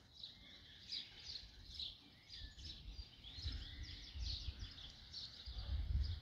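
Small songbirds chirping and twittering continuously in quick, high notes, with a low rumble coming in from about three seconds in.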